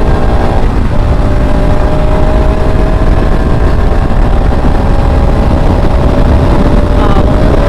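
Bajaj Pulsar RS200's single-cylinder engine pulling under throttle at road speed, its pitch creeping slowly upward, with heavy wind rumble on the microphone.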